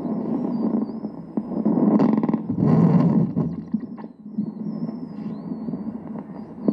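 Fetal Doppler probe on a pregnant belly, its speaker giving a rough, mostly low-pitched noise that swells loudest about two to three seconds in. A faint thin wavering whistle sits above it.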